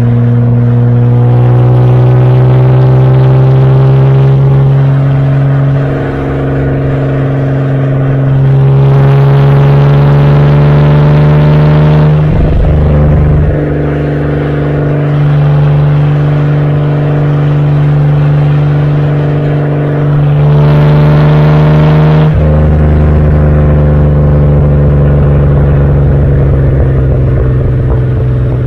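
Exhaust of a 1971 Opel Commodore A GS's 2.8-litre straight-six while driving, recorded right at the twin tailpipes. The note rises in pitch as the car pulls, then breaks off and changes pitch twice, about twelve and twenty-two seconds in.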